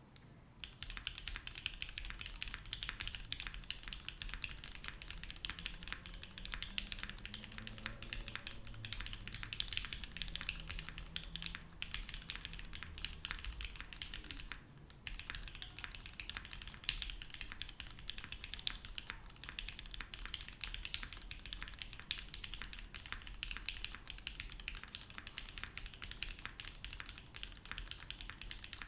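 Steady fast typing on a SingaKBD Unikorn R2.2 60% mechanical keyboard with Gateron Mink linear switches on an FR4 plate: a dense run of keystroke clacks, with a brief pause about halfway through.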